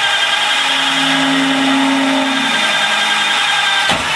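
Corded Magnum drill running a 7/8-inch TCT (carbide-tipped) hole saw through sheet steel: a loud, steady cutting whine. There is a sharp click near the end.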